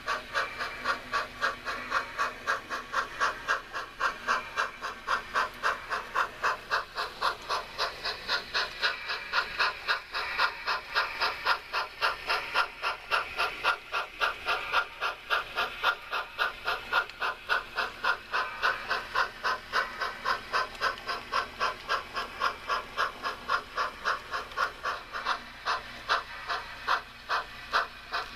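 Steam locomotive chuffing: an even, steady run of hissing exhaust beats, a few a second.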